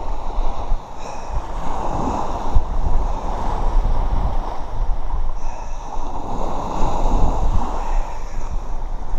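Surf washing up the beach and wind on the microphone, a steady rushing noise that swells and eases every few seconds over a low rumble.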